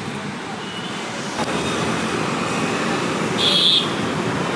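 Steady road traffic noise, with a short high-pitched beep about three and a half seconds in.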